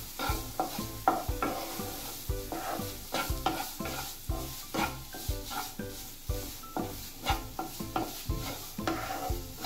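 A spatula stirring and scraping chopped onion and carrot around a non-stick frying pan, about three quick strokes a second, over the steady sizzle of the vegetables sautéing in butter.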